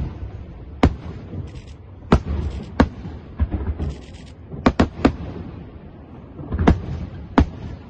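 Aerial firework shells bursting: about seven sharp bangs at uneven intervals, with a low rumble between them.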